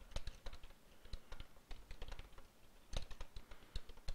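Typing on a computer keyboard: an irregular run of key clicks, a little louder about three seconds in.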